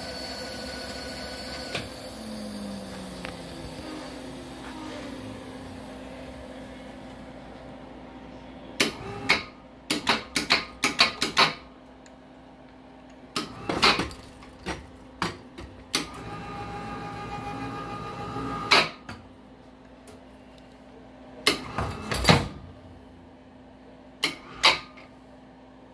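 Electric winch motor whirring as it lowers a heavy cast-iron 8-inch rotary table, cutting off about two seconds in. After that come a series of sharp metal clanks and knocks as the hanging table bumps against the milling machine and sets down on the floor, with the winch whirring again briefly midway. A low steady hum runs underneath.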